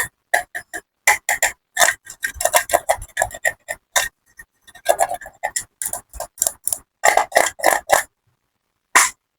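Close-miked crisp clicks and crunches in quick, irregular runs with short silent gaps between them, like candy clattering or crunchy slime being cut. They stop about eight seconds in, and one last click comes just before the end.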